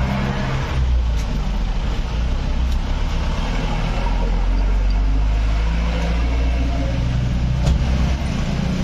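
A motor vehicle running, with a steady, loud low rumble and engine hum.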